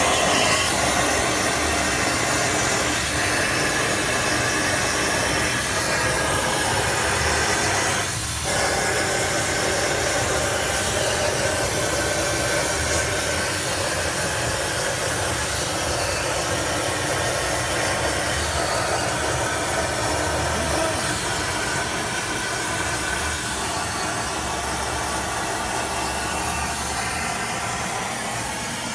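CNC plasma cutter cutting metal: a loud, steady hissing rush of the plasma arc and its compressed-air jet, with a brief break about eight seconds in.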